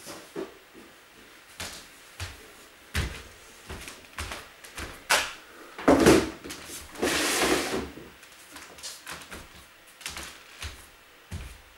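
Scattered knocks and thumps of boxes and household things being handled and moved, with a longer scraping or sliding noise about seven seconds in.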